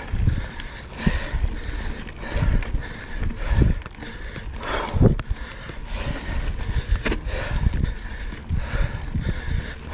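Cannondale Scalpel-Si mountain bike rolling along a dry dirt trail: tyre noise on the dirt with irregular knocks and rattles over bumps, under a steady low rumble of wind on the camera microphone.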